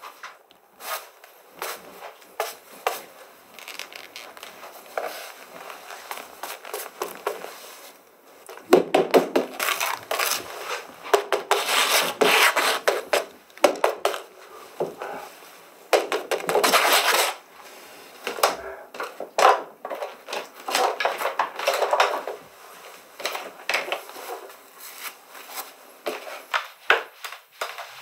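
A paintbrush scrubbing and scraping paint across a painting surface in irregular bursts of strokes, with scattered sharp clicks and knocks of tools and a paint bowl.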